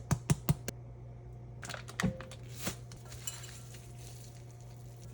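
Kitchenware clinking and knocking during cooking: a quick run of about five sharp clicks at the start and a few more knocks about two seconds in, over a steady low hum.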